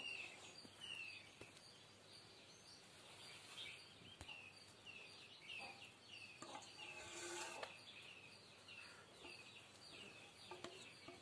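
Near silence with faint bird chirps in the background: short, high, falling chirps repeated two or three times a second.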